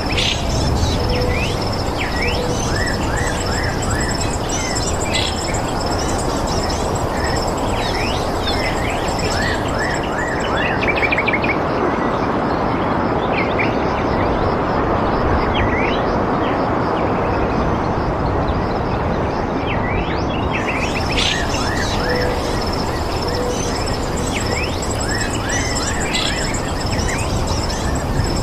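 Birds chirping and twittering in many short calls over a steady rushing background, with a fast high trill that stops about ten seconds in and returns about twenty seconds in.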